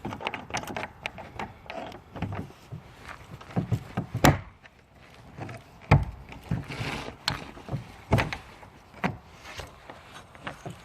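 Clicks, rattles and knocks from a trailer's exterior storage bin door being closed and locked, with two louder sharp thumps about four and six seconds in.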